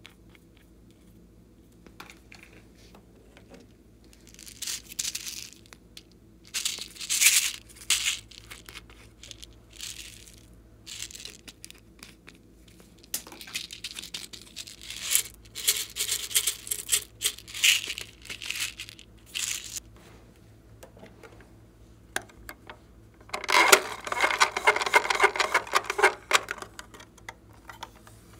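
Slime being squeezed out of small plastic toy containers into a glass dish, with crackly squelching in irregular bursts. Near the end comes a longer, denser crackle as the contents of a pink toy box are tipped out into the dish.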